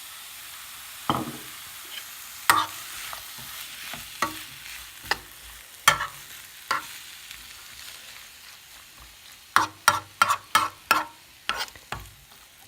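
Stir-fry of pancetta and vegetables sizzling in a frying pan while a utensil knocks against the pan, a few separate knocks followed by a quick run of about eight taps near the end. The sizzle slowly quietens as the baked beans in tomato sauce go in.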